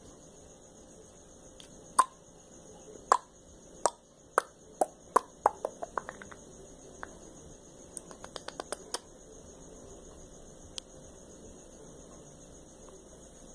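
Long acrylic fingernails clicking sharply: single clicks about a second apart, quickening into a run, then a fast burst of about eight clicks around eight seconds in, and one last click later.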